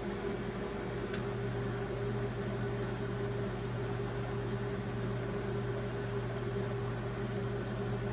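1996 Brastemp Clean BMP31 microwave oven, built by Samsung, running on its Auto Re-Heat cycle: a steady hum with fan noise. There is a faint click about a second in.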